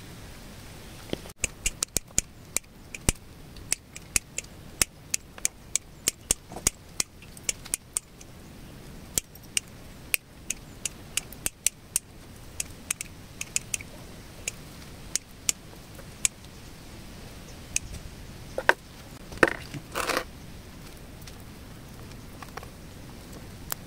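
Small bonsai pruning scissors snipping twigs and leaves: a run of sharp clicks, about two a second, that thins out after about 16 seconds. A short scraping rustle follows near the end.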